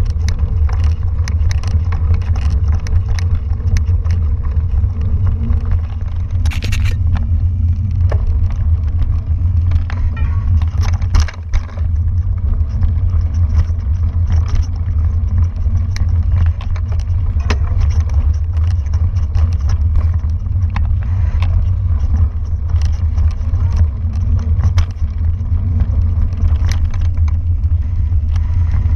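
Wind buffeting a rider-mounted camera's microphone while mountain biking on a dirt singletrack: a steady, loud low rumble. Frequent clicks and rattles come from the bike jolting over the rough trail.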